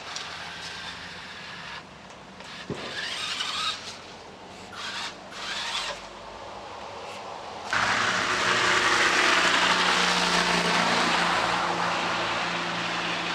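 A motor running with uneven noisy surges. About eight seconds in, a much louder steady rush with a low hum sets in.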